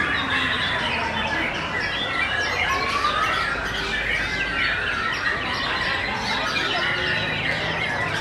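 Many caged songbirds singing over one another in a dense, continuous chorus of chirps and trills, with white-rumped shama song among them. A long falling whistle comes near the start and a slow rising one about three seconds in.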